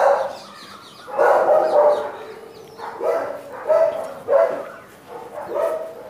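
Guard dogs in a kennel room barking repeatedly, a string of short barks coming every second or so.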